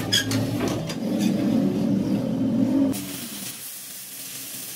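Oxy-acetylene cutting torch on thick steel: a low rumbling roar with a few sharp metal clicks at first, then about three seconds in it changes abruptly to a steady high hiss as the cutting-oxygen jet burns through the steel.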